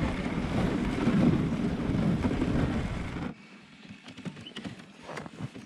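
Dog sled running over a packed snow trail: a steady low rushing noise mixed with wind on the microphone. About three seconds in it drops off suddenly to a much quieter stretch with scattered light clicks.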